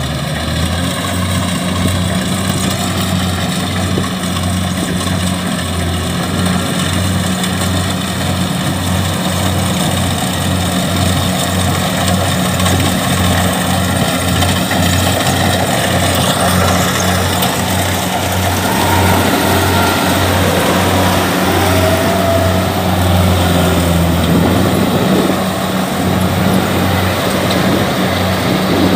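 Kubota DC-70 combine harvester's diesel engine running steadily at working speed with an even pulsing throb, as the machine crawls through deep, sticky mud that it sinks into.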